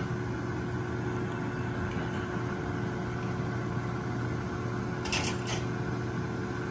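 Countertop air fryer running: a steady fan hum and whir while it cooks. A couple of short clicks about five seconds in.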